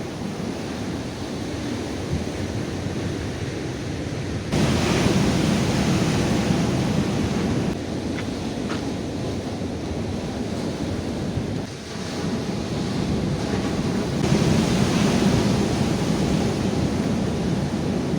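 Sea surf washing onto the shore, with wind buffeting the microphone. The rushing noise jumps louder about four and a half seconds in, dips briefly around twelve seconds and swells again after.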